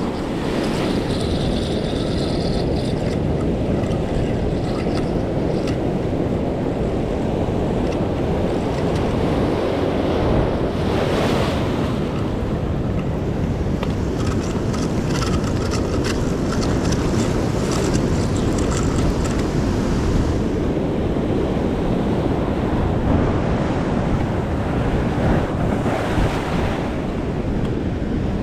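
Sea surf surging onto the shore rocks, with strong wind buffeting the microphone: a steady rush of noise with a couple of louder surges, one about eleven seconds in and one near the end.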